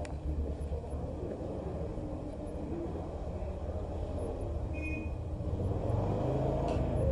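Urban background rumble of traffic with a low, steady drone, growing slightly louder near the end, and a brief high squeak about five seconds in.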